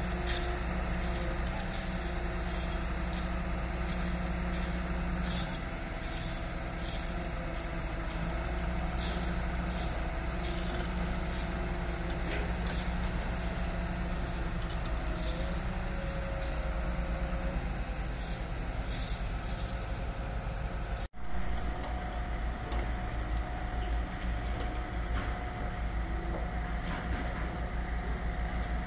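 Diesel engines of a crawler-mounted railway turnout-laying machine running steadily, with scattered sharp metallic clicks and clanks over the hum. The sound drops out for an instant about two-thirds of the way through.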